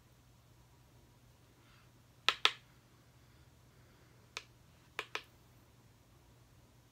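Five sharp clicking taps of a makeup brush knocked against an eyeshadow palette: two quick taps, a single one, then two more.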